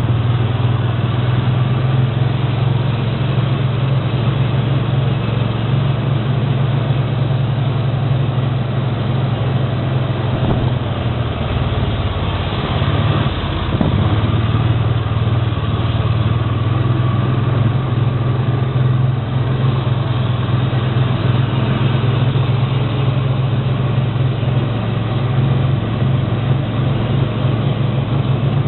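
Steady low mechanical drone of an engine or motor running, dipping briefly about halfway through.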